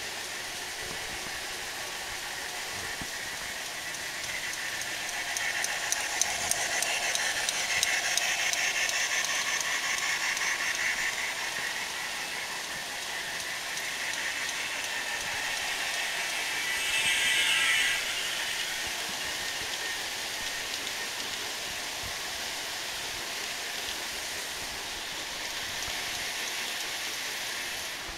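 Large-scale model train rolling along its track over a steady hiss, with a few light clicks about six to eight seconds in and a brief swell as it passes close about seventeen seconds in.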